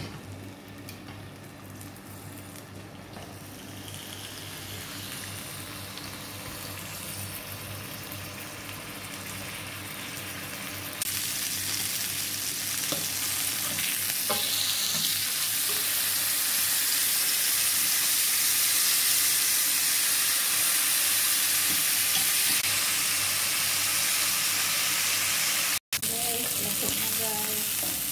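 A marinated beef tenderloin steak sizzling as it sears in oil on a grill pan. The sizzle gets much louder about eleven seconds in, with a few short knocks of tongs as the steak is turned.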